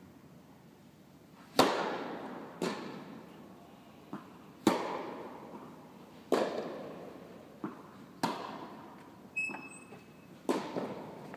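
Tennis ball hit by rackets and bouncing on the court during a rally, about ten sharp pops, the racket strikes the loudest, each followed by a long echo from a large indoor tennis hall.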